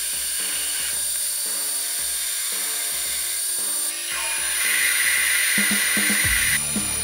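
Metal lathe running with a centre drill cutting into the end of a spinning metal bar, with a steady high whine. From about four seconds in a twist drill bores into the bar, and the cutting noise gets louder and harsher. Background music plays throughout.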